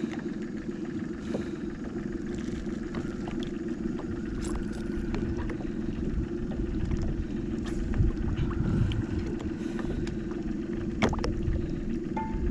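Steady low rumble of wind on the microphone, with scattered faint splashes and drips of water from a hand holding a small snook in the river to revive it.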